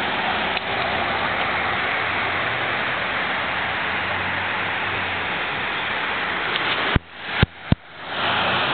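Steady rushing street noise. Near the end come three sharp knocks less than half a second apart, and after each the background drops away suddenly and then climbs back.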